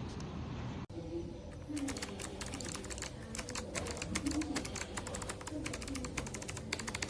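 Typing on a keyboard with Kailh Box White clicky switches: a rapid, uneven stream of crisp clicks from the switches' click bars. There is a brief break a little under a second in, and the typing is dense after that.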